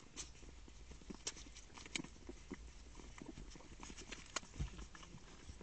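Litter of puppies suckling at their mother: faint, irregular wet clicking and smacking, several a second, with a few sharper clicks.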